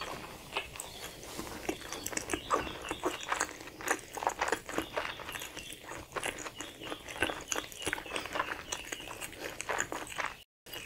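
Close-miked chewing of a spicy chicken wrap with lettuce, mouth closed: a dense, irregular run of short crunches and wet clicks. The sound cuts out for a moment near the end.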